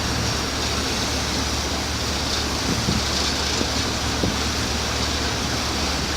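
Steady low engine hum under a constant rushing of wind and water, as aboard or beside a ship under way.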